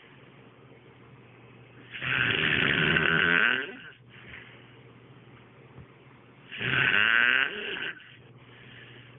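A sleeping man snoring: two long, loud snores about four and a half seconds apart, each lasting about a second and a half, with quiet between. He has been drinking beer the night before.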